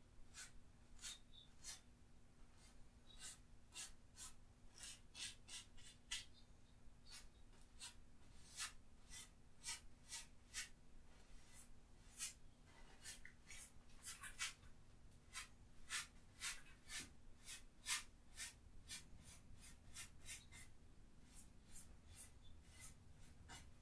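Stiff bristle brush stroking and dabbing oil paint onto a stretched canvas: a string of faint, short, scratchy strokes, irregular at about one to two a second.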